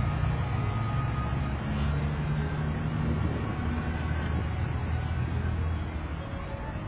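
City street traffic: nearby cars' engines running, heard as a steady low rumble.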